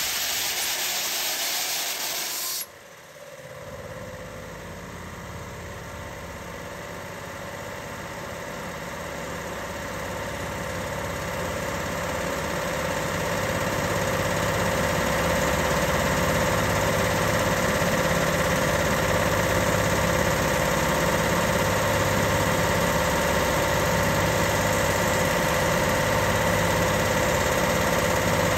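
Compressed air hissing out of a Quincy 15 HP dual-motor air compressor as its tank is bled, cutting off suddenly about two and a half seconds in. The compressor then starts on its own, the drop in tank pressure having tripped its automatic start, and runs steadily, growing louder over the first ten seconds or so as it pumps the tank back up.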